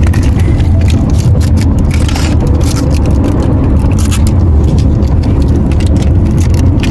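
Steady, loud low rumble like road noise inside a moving car, with scattered clicks and rustles of small plastic packaging and toys being handled on top.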